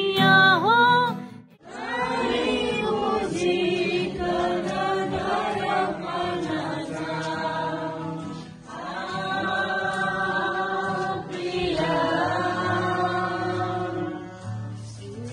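A group of people singing a hymn together, in phrases with short breaks between them. At the very start a voice sings over strummed guitar, which cuts off after about a second and a half before the group singing begins.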